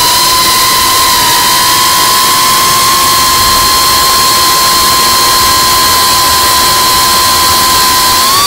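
Brushless motors and propellers of a Geprc Cinelog 35 FPV cinewhoop whining at a steady pitch in fast flight, over a steady hiss. The pitch rises near the end as the throttle comes up. Heard from the camera mounted on the drone.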